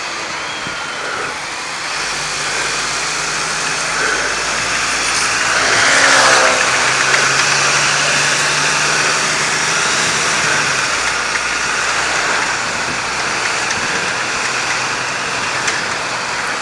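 Road traffic heard from a bicycle: a motor vehicle's engine runs close by from about two seconds in until about eleven seconds, over steady road noise. One vehicle passing is loudest about six seconds in.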